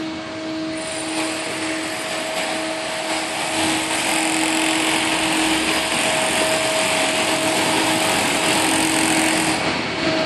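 Construction-site machinery running: a steady motor hum with a rushing mechanical noise that swells about four seconds in and eases off near the end.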